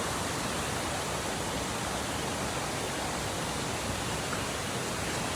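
Waterfall and river water rushing in a steady, even wash.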